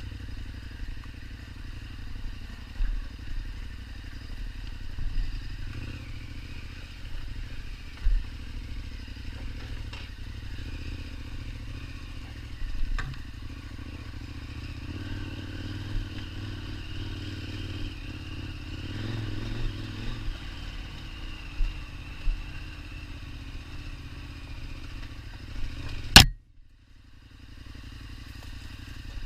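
KTM 1290 Super Adventure's V-twin engine running steadily at low speed, its revs rising for a few seconds mid-way and settling again, with occasional sharp knocks and clatter. Near the end a loud click cuts the sound off suddenly, and it comes back quieter.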